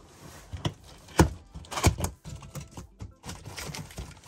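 Large cardboard dollhouse box being handled and opened: several irregular sharp knocks and thumps with scraping in between, the loudest about a second in.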